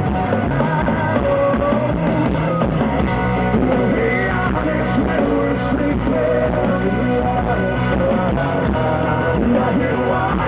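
Live rock band performing a song, with a male lead vocal over guitars and drums, loud and steady throughout.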